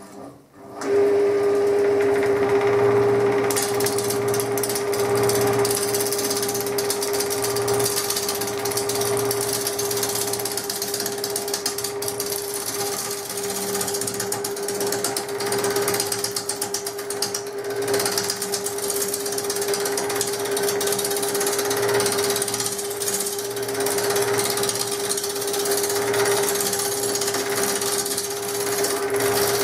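Wood lathe motor starting up and running with a steady hum, then, from about three seconds in, a gouge cutting into the spinning bark-edged log blank: a loud, continuous rough cutting noise made of rapid repeated hits as the tool bites the uneven rim, with chips flying.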